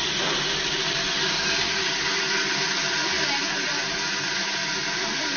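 Industrial stainless-steel blender running steadily, a continuous motor and blade noise.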